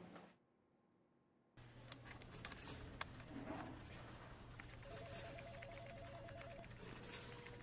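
A USB flash drive being plugged into a laptop: one sharp click about three seconds in, over a quiet low hum. Later a faint pulsing tone for a couple of seconds.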